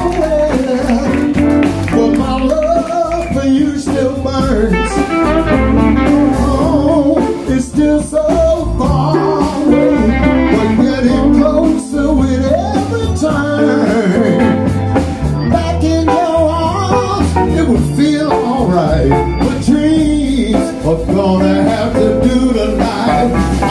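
Live blues band playing, with electric guitars, keyboard and drums.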